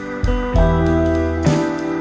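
Instrumental background music: steady held notes over a deep bass line that moves to a new note about once a second.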